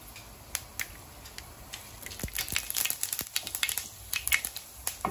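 Mustard and fenugreek seeds crackling in hot oil as a tempering: scattered sharp pops that thicken about halfway through and again near the end.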